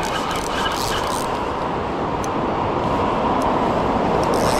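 Steady rush of flowing river water, growing slightly louder, with a few faint ticks in the first second or so.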